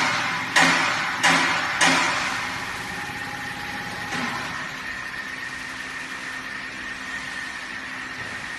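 Common-rail test bench driving a CDI high-pressure diesel pump: sharp knocks about twice a second for the first two seconds, then steady mechanical running with a thin high whine.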